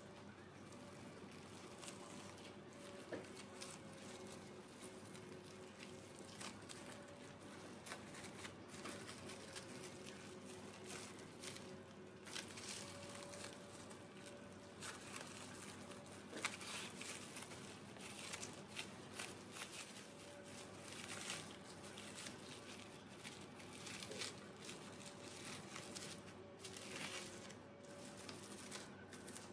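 Plastic cling film crinkling and a bamboo sushi mat clicking as hands roll and press a sushi roll: faint, irregular crackles throughout.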